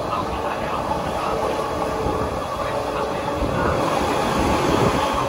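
Electric train running: a steady rumble of rail and running noise with a faint hum.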